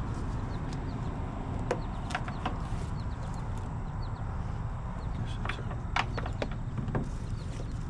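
Cargo strap being hooked and pulled tight around a portable generator: a few short sharp metal clicks in two clusters, over a steady low rumble.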